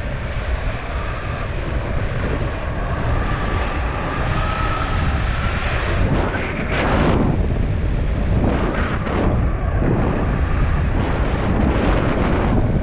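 Electric skateboard riding at speed: wind rushing over the microphone and the rumble of the wheels on asphalt, with a faint motor whine rising slightly in pitch around the middle and louder surges of rushing noise in the second half.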